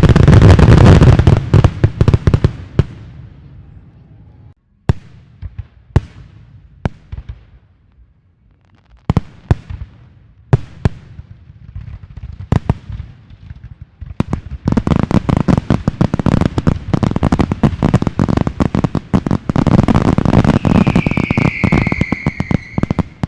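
Fireworks going off: a dense run of crackling bangs at the start, scattered single bangs through the middle, then another long stretch of dense crackling. Near the end a whistle sounds, falling slightly in pitch.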